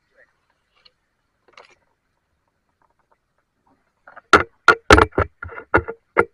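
A quick run of about seven sharp knocks or bangs, starting a little past four seconds in, after a few faint ticks.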